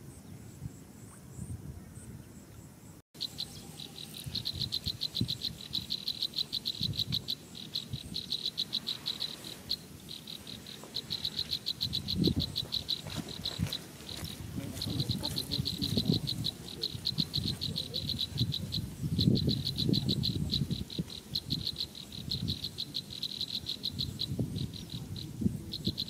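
Insects trilling in rapid pulsed trains, high-pitched, starting just after a brief dropout about three seconds in and repeating with short gaps, over a low irregular rumble.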